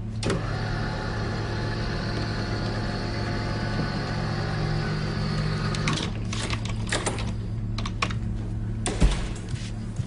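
Body-scanning machine (an MRI-style scanner) running: a steady electronic hum and whir, with several sharp clicks in the last few seconds.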